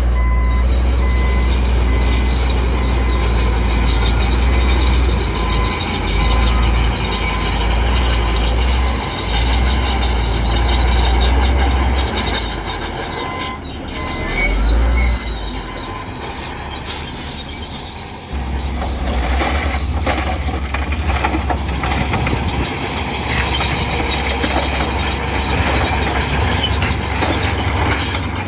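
Crawler bulldozer at work: its diesel engine running with a deep drone while its steel tracks squeal, with high ringing tones over a rough metallic din. The low engine drone drops away a little past halfway and comes back a couple of seconds later.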